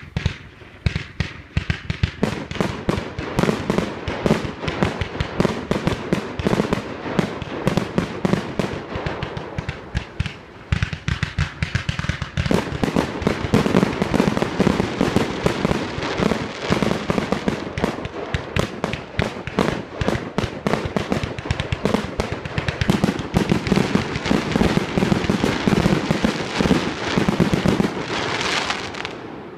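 Fireworks going off in a dense, rapid barrage of bangs and crackles, many bursts overlapping. It starts suddenly and drops away at the end.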